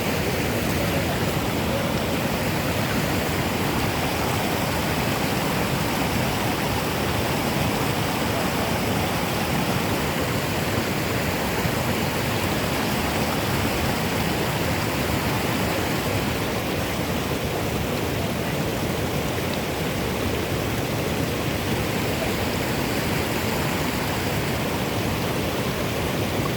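Steady, unbroken rush of flowing water, loud and even throughout.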